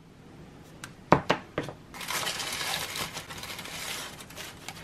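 A few light clicks as a small plastic cosmetic tube is set down on a table, then a hand rummaging through shredded paper crinkle filler in a gift box, a dry rustling for about three seconds.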